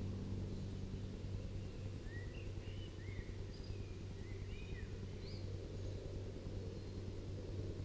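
Honey bees humming steadily over an open hive full of bees, with small birds chirping in short calls in the background, most of them between about two and five seconds in.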